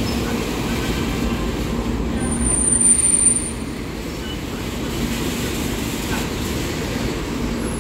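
Dibrugarh–New Delhi Rajdhani Express train running, a steady low rumble that swells briefly about three seconds in, with a thin high whine over the swell.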